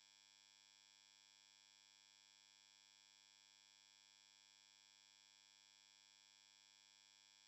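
Near silence: only a faint steady electronic hum.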